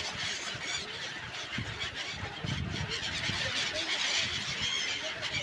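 A large flock of gulls calling over one another as they mob the water for grain: a dense, continuous chorus of overlapping short cries.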